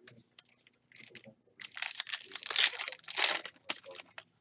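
A Topps Heritage baseball card pack's wrapper being torn open and crinkled in the hands. A few light crinkles come first, then a dense crackling rustle starts about a second and a half in and is loudest near the middle.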